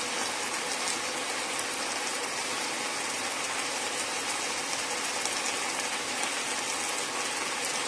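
Shredded tongkol fish in a thick chili sauce simmering in a frying pan: a steady sizzle with fine crackling.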